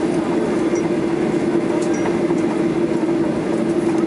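Airliner cabin noise while taxiing after landing: a steady engine drone with a constant hum, and a few light clicks and rattles.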